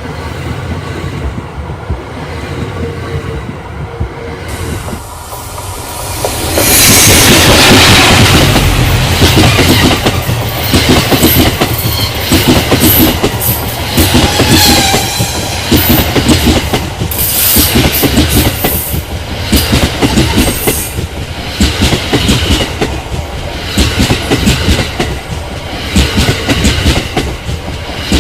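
Cassiopeia sleeper train hauled by an EF81 electric locomotive passing close by. It grows loudest about seven seconds in, then the coaches' wheels clatter over rail joints in a steady, repeating rhythm.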